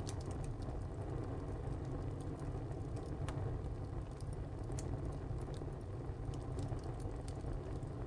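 Wood fire burning in a tile stove: a steady low rumble of the flames with sparse, sharp crackles and pops from the burning wood, one louder pop about three seconds in.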